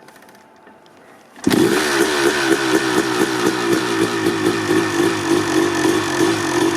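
A 1989 Honda CR250R's single-cylinder two-stroke engine firing up from cold with an FMF Gnarly pipe: it catches suddenly about a second and a half in and runs unevenly, its speed rising and falling in quick regular waves as the cold engine settles.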